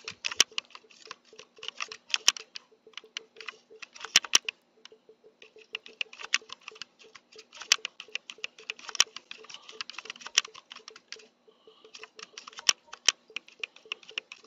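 Keys clicking rapidly, pressed in quick succession to move across an on-screen keyboard and enter letters, with a short pause about two-thirds of the way through.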